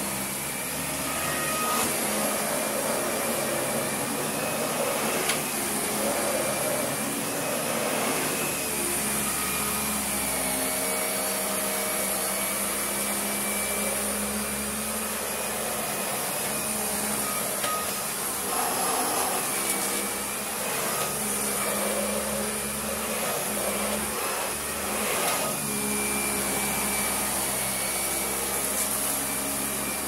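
A Dyson vacuum cleaner runs steadily with a high whine. Its motorised brush head is pushed back and forth over thick carpet, and the loudness swells and dips a little with each stroke. A few faint crackles are heard as grit is sucked up.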